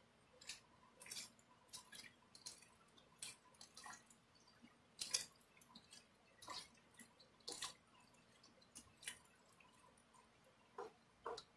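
Faint, irregular wet squelches of bare hands mixing sliced pork and onions through a thick spicy marinade in a bowl, several soft squishes a second.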